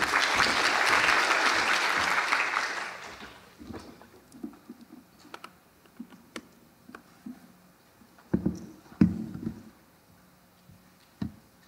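Audience applauding, fading out after about three and a half seconds. Then scattered clicks and knocks as a laptop and its cable are handled at the lectern, with two louder knocks about eight and nine seconds in.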